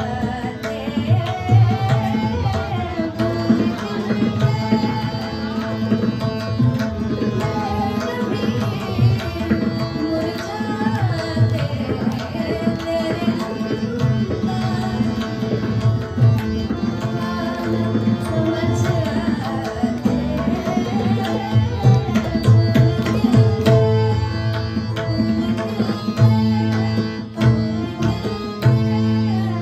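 Tabla playing a steady rhythmic pattern under keyboard accompaniment to a ghazal, with a gliding melody line over sustained low held notes.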